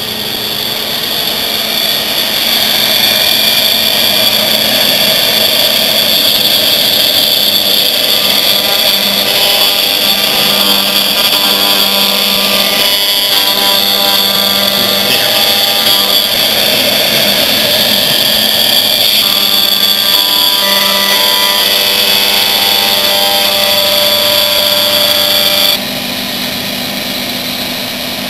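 CNC router spindle running at high speed while cutting a high-density polyethylene sheet: a steady high-pitched whine over the noise of the cut. The level drops a little near the end.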